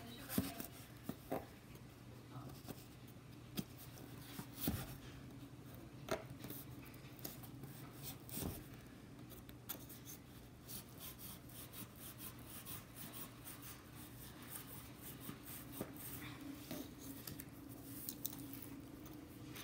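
Scissors snipping through thin cardboard in a series of separate, irregular crisp cuts, with the cardboard rustling as it is handled between them.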